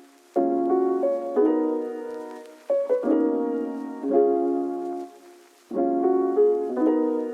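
Background piano music: gentle chords struck and left to fade, in short phrases with brief pauses between them.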